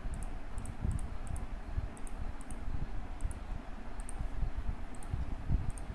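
Computer mouse button clicking: a dozen or so light clicks at irregular intervals, many as quick press-and-release pairs, over a low steady rumble.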